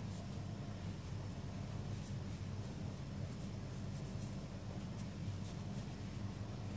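Cut marker's chisel tip scratching across paper in short, irregular strokes as calligraphy letters are written, over a steady low hum.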